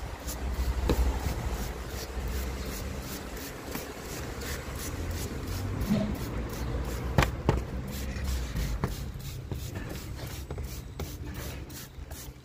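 Hand-held trigger spray bottle squirting degreaser over an engine bay, over a rough rubbing of handling noise, with a few sharp clicks.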